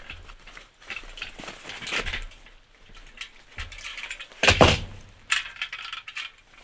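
Steel mesh side panels of a utility cart being lifted out of the box, with the plastic foam wrapping rustling and crinkling and the metal clinking. About four and a half seconds in comes one loud clank of metal, followed by a few smaller knocks.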